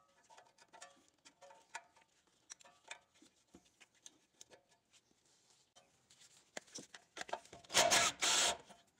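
Faint, irregular metallic clicks and taps of hand tools working at a tie-rod end's cotter pin and castle nut, then a loud scraping rub lasting about a second near the end.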